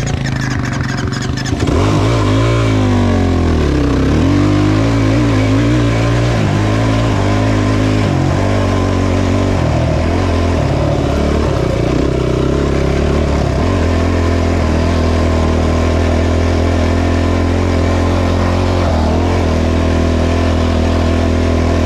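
Off-road vehicle engine revving, its pitch rising and falling over the first few seconds, then running loud at a fairly steady pitch.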